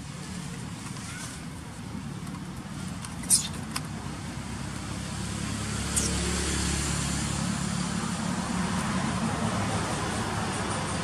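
Motor vehicle traffic: a steady engine hum under tyre and road noise that swells after about four seconds and then holds. A short sharp click comes about three seconds in, and a brief high chirp near six seconds.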